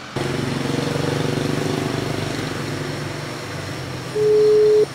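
A single steady mobile-phone ringback tone about four seconds in, lasting under a second: the line ringing while a call waits to be answered. Before it, a motor engine hum that fades away slowly.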